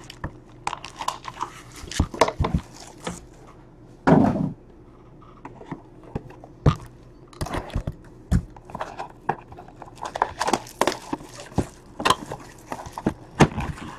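Cardboard trading-card boxes and card packs being handled on a tabletop: a run of scattered taps, knocks and rustles as packs are pulled out and set down, with a louder thud about four seconds in.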